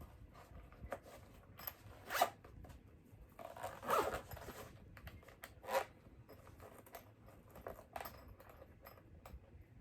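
A zipper pulled in a few short, separate strokes, with faint handling clicks between them.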